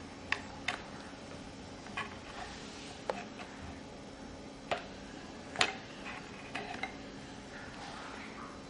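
Light, irregular clicks and taps of a toy tool and plastic pieces knocking on a wooden toy workbench, about eight in all, over a faint room hum.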